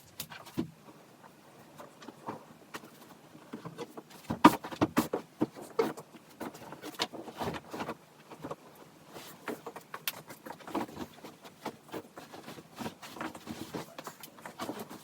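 Small household objects being handled: a quick, irregular run of light clicks, taps and knocks, busiest and loudest about four to six seconds in.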